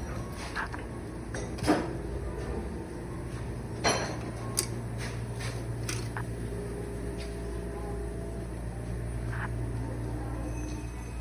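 A few sharp knocks and clicks over a steady low hum, the loudest two near the start.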